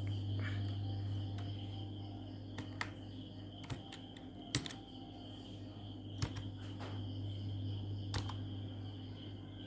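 A few scattered clicks of computer keyboard keys, struck slowly one at a time, as text is typed into a word-processor table. A steady low hum and a faint high whine run underneath.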